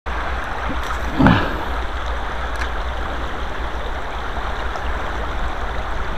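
River water rushing steadily, with one brief louder sound about a second in.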